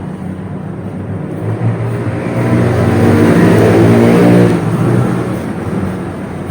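A motor vehicle's engine passing close by, building up to its loudest about four seconds in and then fading away.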